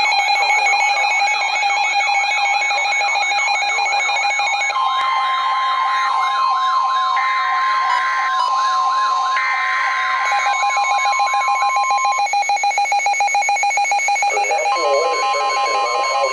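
Layered emergency alert sounds: a siren warbling quickly up and down, long steady alarm tones and repeated electronic beeps, all overlapping. The warbling stops about 11 seconds in. A single steady tone drops out about a second later and comes back near the end.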